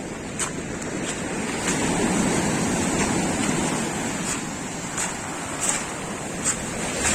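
Black Sea surf washing on the beach, swelling louder about two seconds in. Short crunching steps of someone walking come at an even pace, roughly every two-thirds of a second.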